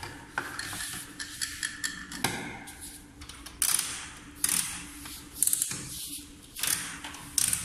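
Scattered clicks, taps and clattering from a child handling a toy play kitchen, turning its knobs and moving its plastic pots, in short sharp bursts about every second.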